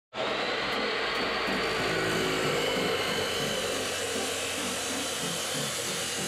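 DeWalt abrasive chop saw cutting through metal: a loud, steady grinding hiss with a high whine over it. It starts suddenly and holds steady as the wheel bites.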